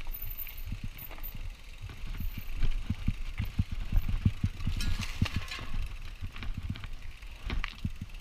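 Mountain bike jolting over rock slabs and roots: a rapid, uneven run of low knocks and rattles over a rumble of wind on the microphone, with a brief scraping hiss about five seconds in.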